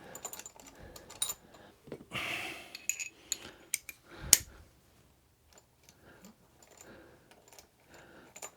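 Irregular small metallic clicks and clinks of bolts, a spacer and hand tools being handled while a gear shift stabiliser bracket is fitted to a motorcycle's engine casing. There is a short rustle about two seconds in and one louder sharp clack a little past four seconds; the clinks thin out in the second half.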